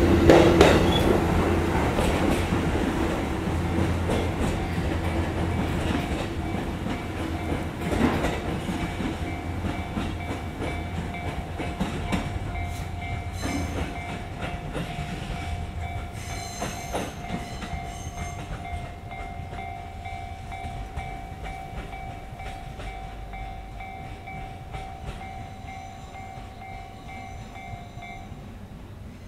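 E257-series electric limited express train pulling out and running away along the line, wheels clattering over the rail joints, with one sharper knock about eight seconds in. The rumble fades steadily as the train recedes into the distance.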